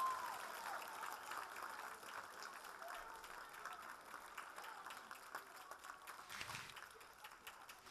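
Faint audience applause, a dense patter of many hands clapping that fades away over the seconds.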